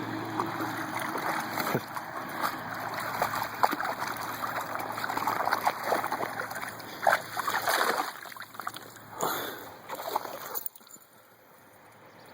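A dog splashing and sloshing about in water, with irregular splashes; the splashing stops abruptly about ten and a half seconds in.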